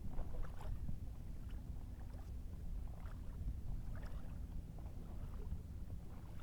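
Water splashing and lapping irregularly against the hull of a Tiwal 3 inflatable sailing dinghy under way, over a low steady rumble.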